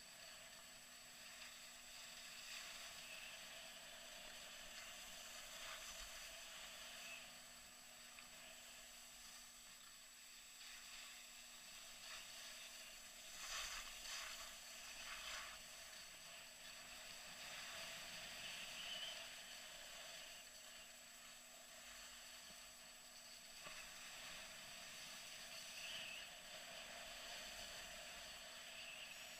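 Faint hiss and scrape of skis sliding and turning on packed snow, swelling briefly a few times as the turns bite harder, over a steady low electronic hum.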